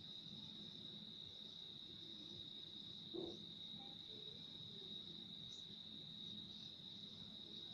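A faint steady high-pitched drone or trill over a low hum, with one brief soft knock about three seconds in.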